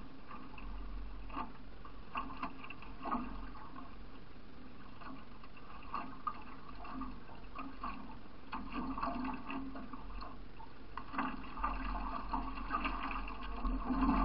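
River water rushing and splashing against a racing canoe's hull as it runs through choppy current, with irregular louder splashes that come thicker in the last few seconds.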